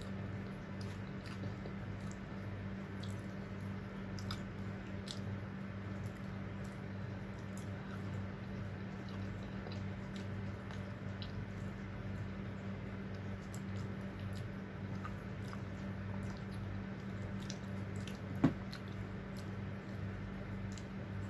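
A person eating close to the microphone: chewing, with small wet mouth clicks and smacks, over a steady low hum. One sharp click stands out about eighteen seconds in.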